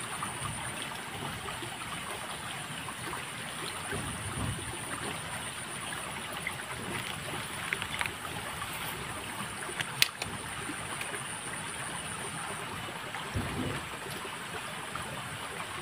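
Small river running steadily, an even wash of flowing water, with a thin high pulsing tone above it and one sharp click about ten seconds in.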